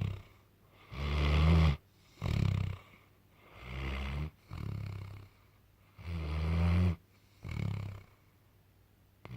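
A dog snoring loudly in its sleep. Each breath is a pair of low snores, a longer one then a shorter one, repeating about every two and a half seconds.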